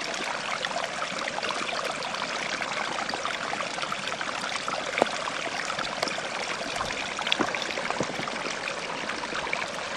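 Small stream running steadily, with a faint click or two.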